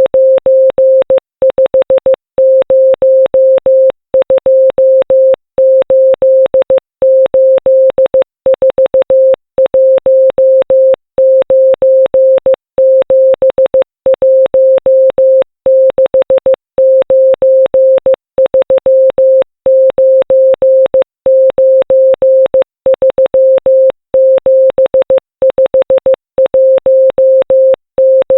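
Morse code keyed on a steady 528 Hz tone: a running string of short and long beeps, each number sent as a group of five dots and dashes, spelling out the digits of pi. Each beep starts and stops with a faint click.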